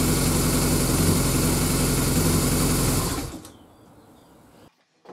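BMW R1200GS boxer twin engine running steadily at idle, then switched off about three seconds in, its sound dying away within a fraction of a second.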